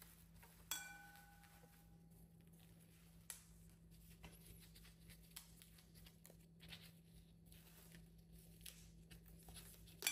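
Quiet food-prep handling: a sharp clink that rings on briefly about a second in, then faint scattered taps and clicks over a steady low hum, with another ringing clink at the very end.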